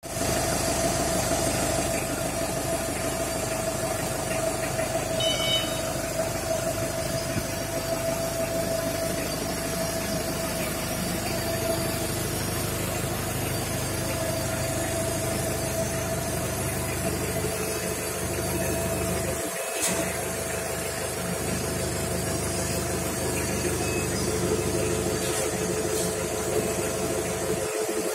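Maxlift FD30 forklift's Mitsubishi S4S four-cylinder diesel engine running steadily, with a steady tone over it throughout. A second, lower steady tone joins about two-thirds of the way through.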